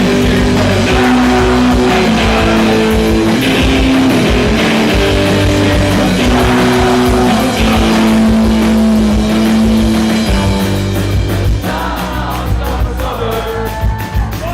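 Live punk rock band playing with electric guitar, bass and drums, carrying a held melody line. Near the end the playing turns to a quicker, choppier rhythm.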